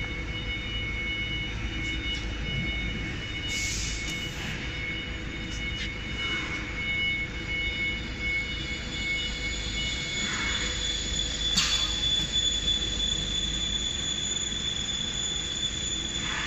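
Multi-spindle CNC router's spindle motors running with a steady high-pitched whine made of several tones. The mix shifts higher about ten seconds in, and a few short hissing bursts come through, the loudest about twelve seconds in.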